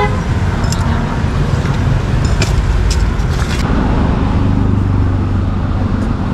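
Steady street traffic noise, with a low engine hum swelling about two thirds of the way through as a vehicle passes, and a few sharp clicks.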